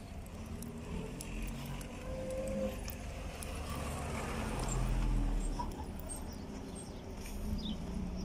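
Road traffic passing, with a low rumble throughout; one vehicle swells up and fades about four to five seconds in.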